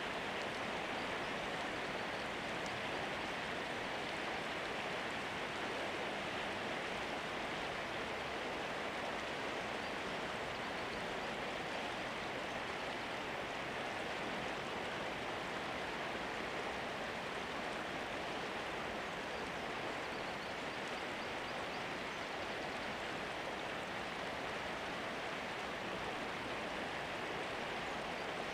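A steady, even rushing noise like running water, unchanging throughout, with no other sounds over it.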